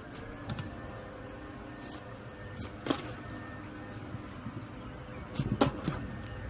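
Hands kneading and pressing slime mixed with clay, giving scattered sticky clicks and pops. The loudest comes about three seconds in, and a quick cluster of them comes near the end.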